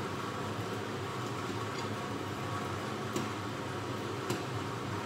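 Two sharp clicks of a metal kitchen utensil against cookware, about a second apart past the middle, as fried dried fish is lifted from the frying pan onto a plate, over a steady kitchen hum.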